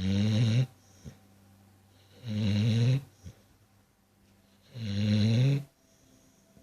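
A sleeping dog snoring: three low snores about two and a half seconds apart, each under a second long.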